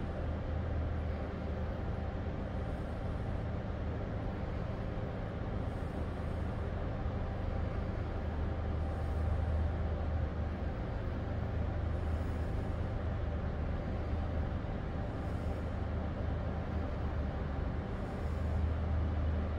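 Low, steady rumble of the cruise ship Norwegian Dawn's machinery, with a faint hum over it, swelling and easing slightly as the ship moves slowly in to dock.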